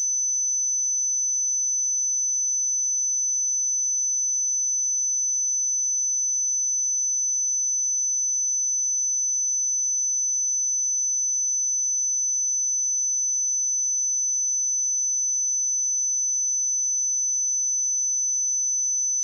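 A steady, high-pitched pure sine-wave test tone at 6042 Hz, held at one pitch and level throughout.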